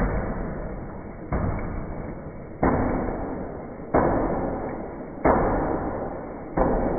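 Homemade battery-powered magnet engine running: a noisy surge about every 1.3 seconds, each starting sharply and fading into the next, in an even cycle, six times over.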